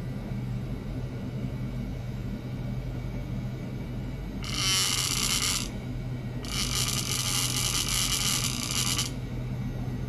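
Steady low electrical hum from bench test electronics. Two bursts of high, buzzing hiss come over it: the first lasts about a second, a little over four seconds in; the second lasts about two and a half seconds.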